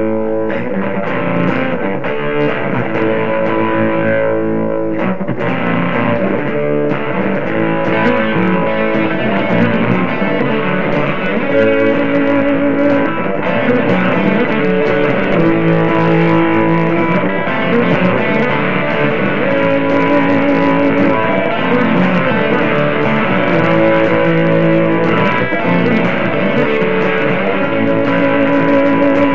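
Rock music with electric guitar and bass guitar, playing steadily.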